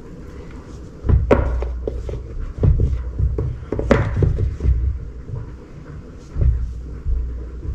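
Flour being scooped with a measuring cup and tipped into a glass mixing bowl of batter: irregular low thuds, with a couple of sharp clinks of the cup.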